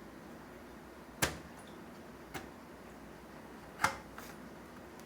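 Sharp clicks of a replacement circuit board being lined up on its connector pins and pressed home in a Siemens BC8001A fire alarm control panel: two loud clicks about two and a half seconds apart, with a fainter tick between them and another just after the second.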